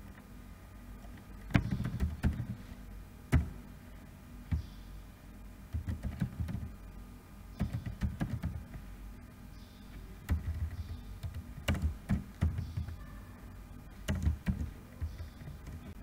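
Computer keyboard keystrokes typed in short bursts of a few clicks, with pauses of a second or so between bursts, as a web link is typed out.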